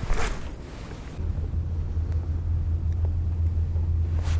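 Wind rumbling on the camera microphone: a steady low rumble that sets in about a second in, after a brief hiss at the start.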